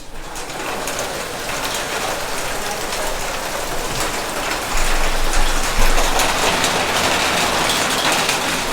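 Rain falling steadily, a dense patter of drops, with a couple of low bumps a little after the middle.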